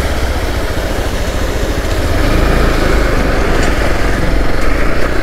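Motorcycle engine running at low speed, under a steady rush of water from a water crossing and small waterfall; the engine grows louder about two seconds in.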